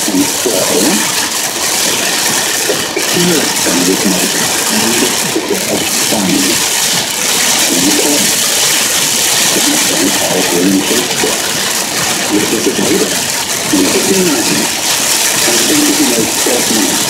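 Heavy rain hitting a moving car and its tyres running on the flooded highway: a loud, steady hiss. A muffled voice comes and goes underneath.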